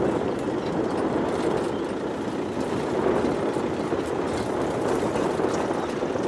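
Off-road vehicle driving along a rough sandy bush track: steady engine and road noise.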